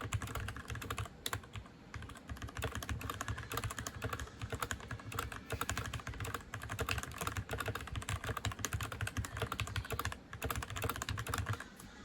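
Fast, continuous typing on a Keychron K6 mechanical keyboard fitted with lubed Gateron Red linear switches and foam in the case: a dense run of keystroke clacks that thins out near the end.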